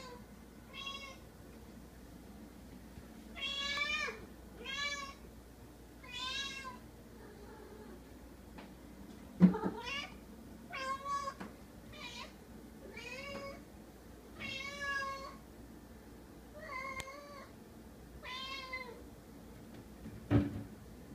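Long-haired domestic cat meowing over and over in about a dozen short, wavering calls, directed at an earwig it is after. Two dull thumps, the louder about halfway through and another near the end.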